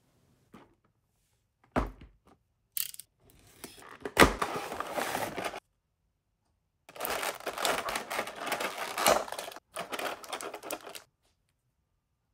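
Hands handling a figure's clear plastic blister tray and paper instruction sheet: a couple of sharp knocks about 2 and 4 seconds in, then two long stretches of crackling, rustling plastic.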